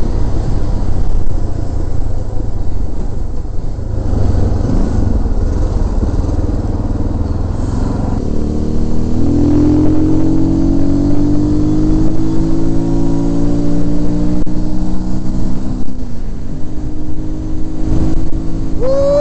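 Harley-Davidson MT350 motorcycle's single-cylinder four-stroke engine under way, heard through wind rush on a helmet camera. From about eight seconds in its note climbs steadily as the bike accelerates, drops suddenly at an upshift near the end, then runs on steadily.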